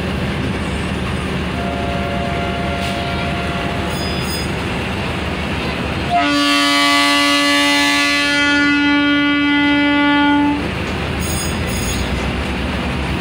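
Passenger train running past on the adjacent track with a steady rumble, and a train horn sounding one long blast of about four seconds from about six seconds in.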